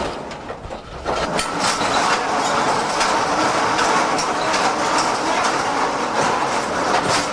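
Type 87 self-propelled anti-aircraft gun on the move, its tracks rattling over a steady running rumble, with repeated sharp clanks of the track links. It gets louder about a second in.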